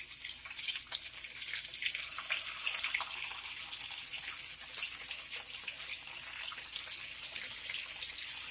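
Fish steaks shallow-frying in hot oil in a nonstick frying pan: a steady sizzle with frequent small crackles and pops, now and then a sharper pop as another piece goes into the oil.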